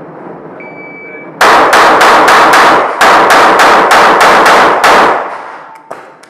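A shot-timer beep, then a fast string of more than a dozen pistol shots in under four seconds with a short break midway, each shot echoing and steel plates clanging under the hits. A few light metallic clicks follow near the end.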